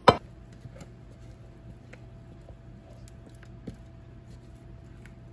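A sharp knock right at the start, then faint soft ticks and squishing as thick cake batter is poured and scraped from a mixing bowl into a glass baking dish, over a steady low hum.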